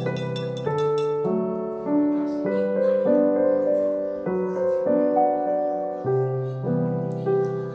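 Solo piano background music: a slow melody over held chords. In about the first second a spoon clinks lightly against a glass several times.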